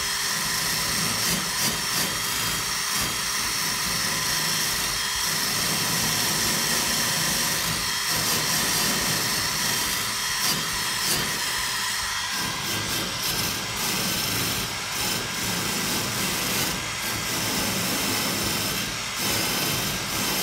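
Cordless drill spinning a 2-inch wire cup brush against rusty steel crate wires, stripping the rust. A steady motor whine runs over harsh scraping, and the brush catches and knocks on the crossing wires.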